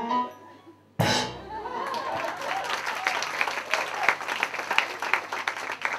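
A sudden loud musical hit about a second in ends the comic song, and audience applause follows right away and keeps going.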